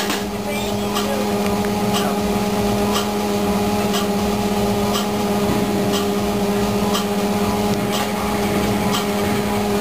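Arcade prize machine counting down its timer, a short tick about once a second, over a steady hum.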